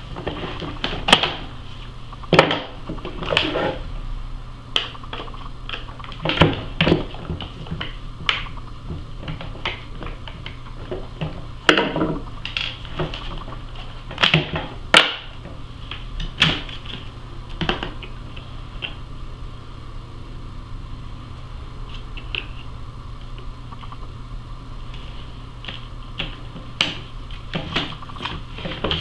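Hard plastic clicks, knocks and rattles as an upright vacuum cleaner's base is taken apart by hand: the bottom plate comes off and the brush roll is lifted out, with parts set down on a wooden tabletop. The clicks come irregularly, several close together at times, over a steady low hum.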